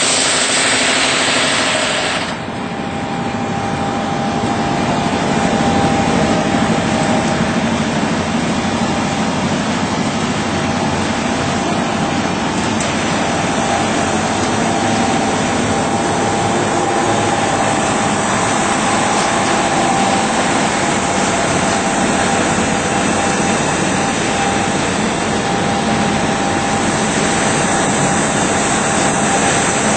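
ERNST PLUTON deburring machine running as it grinds the burr off a 10 mm metal plate. A bright grinding hiss cuts off about two seconds in. The machine's drives and conveyor then run on steadily with a faint steady whine.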